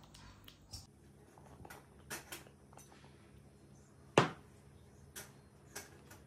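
A silicone spatula working a mixture in a glass mixing bowl: a few soft clicks and scrapes against the glass, and one sharp knock a little past halfway, the loudest sound.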